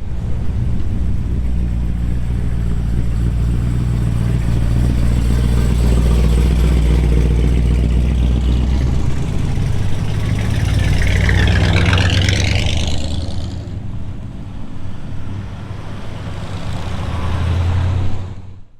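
Car engine running with a deep, steady note whose pitch shifts a couple of times. A brief high, wavering sound rises over it about ten to thirteen seconds in.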